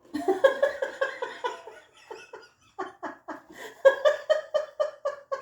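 A chicken making an unusual call: a rapid run of short pitched notes, about four or five a second, that go on without a break.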